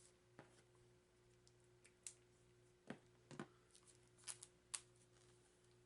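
Fingers picking and pulling at tight plastic shrink-wrap on a deck of cards, giving a few scattered crinkles and clicks over a faint steady low hum.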